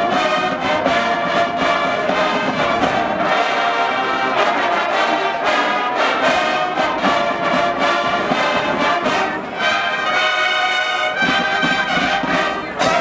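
Alumni marching band playing a loud brass piece, trombones and trumpets over a steady drum beat.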